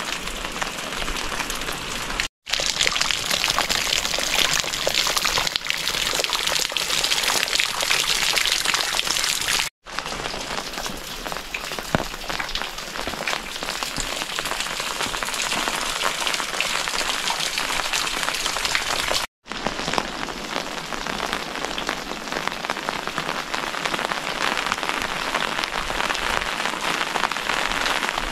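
Steady rain falling, a dense even hiss of many drops. One sharper tap comes a little before halfway. The sound cuts out for an instant three times where clips are joined.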